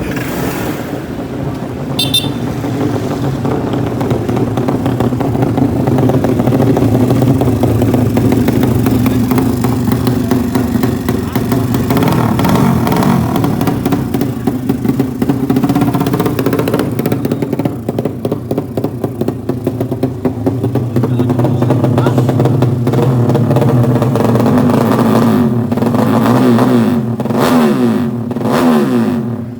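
Drag-racing motorcycle engine running loud at high revs, with the pitch climbing near the end as it revs up.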